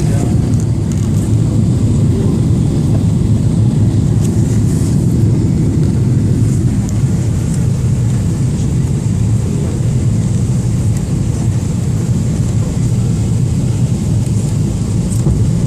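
Steady low rumble of engine and airflow noise inside the cabin of a Boeing 777-300ER airliner in flight.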